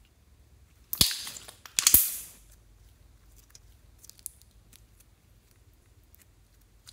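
Clear pink slime stretched and folded by hand: two loud sticky pops about a second apart, each trailing off in a short crackle, then a few faint clicks.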